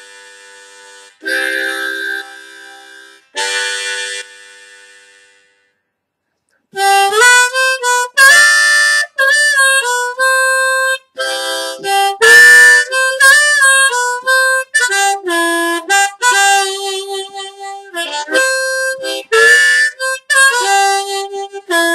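Seydel 1847 Classic diatonic harmonica in C, with a wooden comb and steel reeds, played: three held chords in the first few seconds, a short pause, then a fast phrase of single notes with bent notes.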